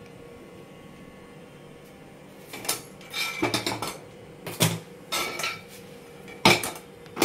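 Metal cookware clattering: after a quiet couple of seconds, a run of separate knocks and clinks as a kadai is handled and set on a gas stove.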